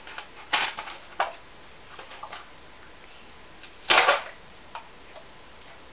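Jagarico paper snack cup being opened by hand: the sealed lid peeled back in a few short crackling tears, the loudest about four seconds in.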